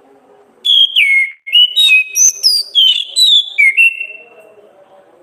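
Orange-headed thrush singing one loud phrase of clear whistled notes, many of them sliding downward, starting about half a second in and lasting about three and a half seconds.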